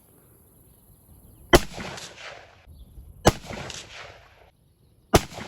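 .22 rifle fired three times, about 1.7 seconds apart, each shot sharp with a fading echo after it; none sets off the Tannerite.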